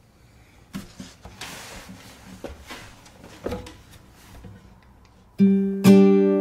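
Faint scattered clicks and a brief rustle, then about five seconds in an acoustic guitar starts strumming chords loudly, the opening of the song.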